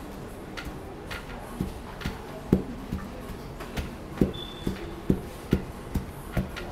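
Long wooden pestle pounding boiled plantain into fufu in a wooden mortar: dull, regular thuds about two a second, faint at first and plainer from about a second and a half in.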